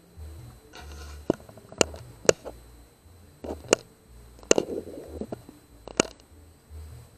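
Handling noise picked up by a PARD 007A scope camera's built-in microphone: about half a dozen sharp clicks and knocks over patches of low rumble as the device is moved.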